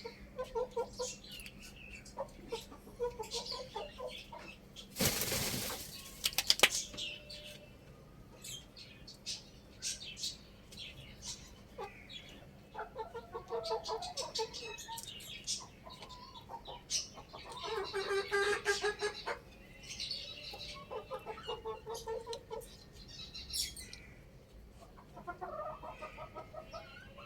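Chickens clucking and calling, with a loud burst of wing flapping about five seconds in and a longer call about two-thirds of the way through.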